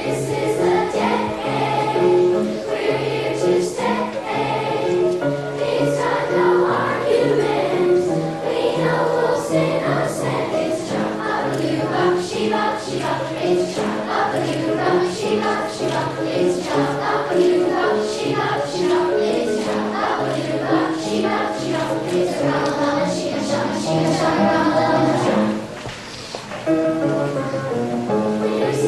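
Children's choir singing a 1950s-style song over an accompaniment with a steady bass line and beat. The music drops away briefly near the end, then picks up again.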